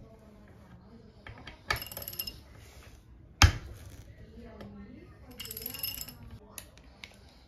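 Metal hand tools knocking and clinking against a pressure-washer pump clamped in a steel bench vise. There is a sharp knock followed by a short metallic ring a little under two seconds in, a louder sharp knock near the middle, and another brief metallic ring about two-thirds through, with small clicks between.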